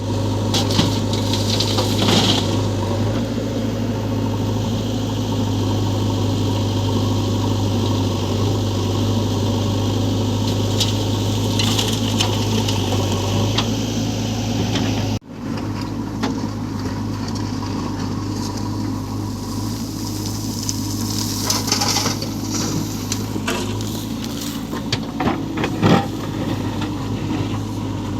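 Diesel engine of heavy earthmoving machinery running steadily with a deep hum. It breaks off sharply about halfway through and resumes, with a few short knocks near the end.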